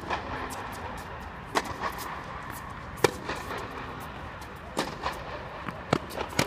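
Tennis balls struck with rackets during a rally: sharp pops roughly every one and a half seconds, with softer ball bounces between them.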